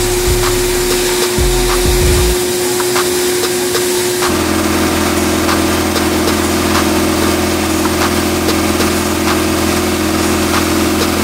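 Sandblasting cabinet gun blasting abrasive at a steel steering spindle: a steady hiss of air and grit, with a low steady hum underneath that changes about four seconds in.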